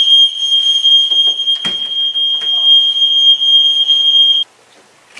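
Smoke detector sounding one loud, continuous high-pitched tone, set off by stage fog from a fog machine; it cuts off suddenly a little over four seconds in. A single sharp knock about a second and a half in.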